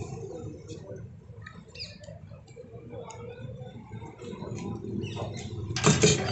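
A knife cutting a frozen kulfi into chunks that drop onto a foil-lined paper plate: scattered small clicks and scrapes, with a louder crackle near the end.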